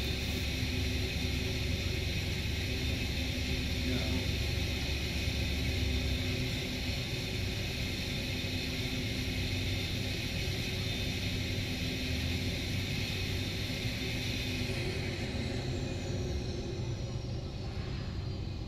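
Bombardier Q400's Pratt & Whitney Canada PW150A turboprop engines running with a deep rumble and a steady high whine. The rumble eases about six seconds in, and in the last few seconds the whine falls in pitch as the engines spool down at shutdown.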